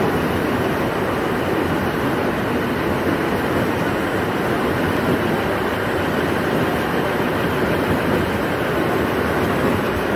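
Paper straw making machine running steadily, its paper strips feeding over guide pulleys into the forming and cutting heads: a dense, even mechanical noise that holds level without a break.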